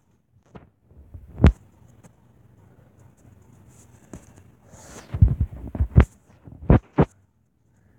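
Fingertips tapping a tablet's touchscreen keyboard, picked up as dull thumps: one about a second and a half in, then a quick run of several taps between five and seven seconds in.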